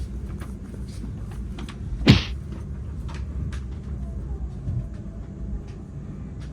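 Shinkansen train rolling slowly on battery power, heard from inside the car: a steady low rumble with faint scattered ticks, and one short, loud sharp sound about two seconds in.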